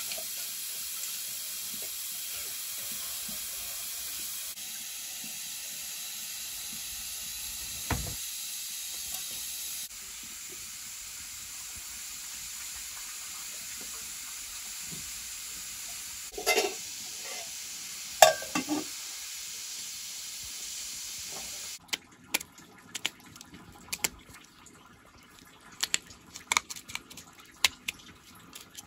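Steady sizzling hiss from pots steaming over the wood fire of a clay stove, with a few short metal clinks. About 22 s in this gives way to sharp irregular clicks of a curved knife cutting potatoes, the pieces dropping into a metal bowl.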